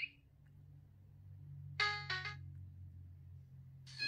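M19 smartwatch speaker playing ringtone previews as tones are picked in its ringtone menu: a quick two-note chime about two seconds in, then near the end a louder tone that falls in pitch.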